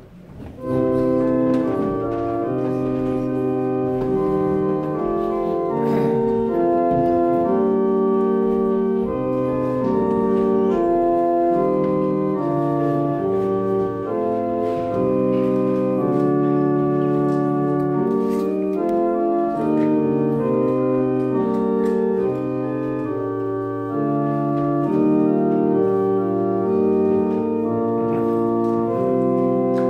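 Church organ playing slow, sustained chords, starting about a second in.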